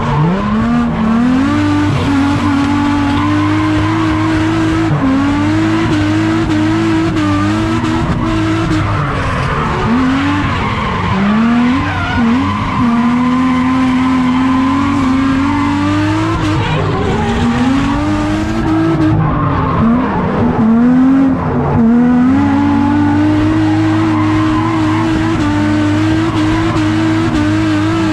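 Drift car engine revved hard, climbing and holding high revs for several seconds at a time, dropping and climbing again over and over, with tyres squealing through the slides.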